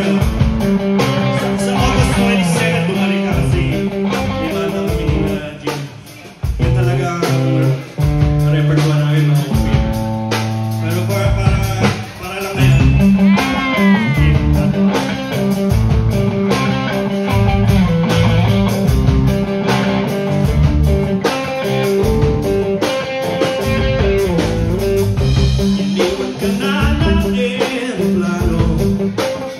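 Live rock band playing an OPM song: electric guitars, bass and drums, with a male lead singer.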